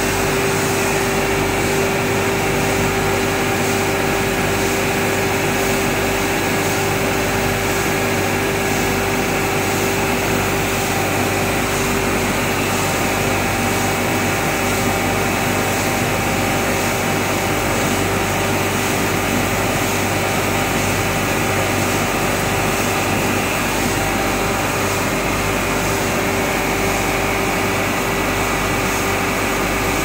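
Industrial bin-washing machine running: a steady mechanical hum with a few held tones over a constant hiss from its pumps, spray and conveyor, unchanging throughout.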